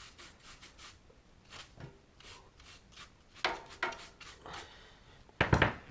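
Fly ash being brushed off a wood stove's ceramic catalytic combustor: a quick run of light, hissy brush strokes, heavier strokes a little past halfway, and a loud knock or scrape near the end.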